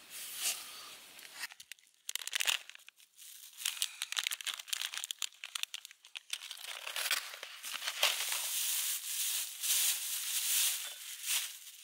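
Clear plastic bag and food packaging crinkling and rustling as they are handled, in quick irregular crackles that grow busier in the second half.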